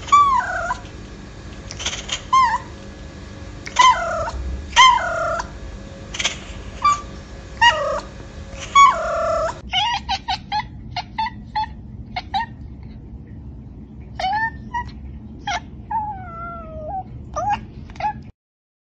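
A cat meowing loudly about eight times, each call falling in pitch. Then a second cat gives a quick run of short chirping meows, followed by a few longer, wavering meows near the end.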